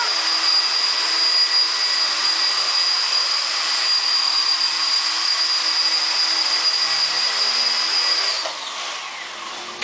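Small electric 250-size RC helicopter (HK250GT) hovering: a steady high-pitched whine from the motor and rotor. About eight and a half seconds in, the pitch falls and the sound fades as the motor is cut and the rotor spools down.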